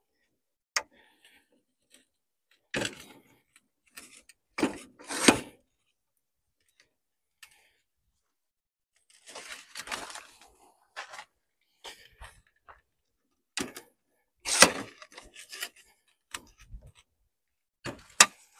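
Metal legs and frame of a folding camping table clattering and clicking as they are unfolded and locked into place, with scattered knocks and handling rustles; the loudest knocks come about five seconds in and again near fifteen seconds.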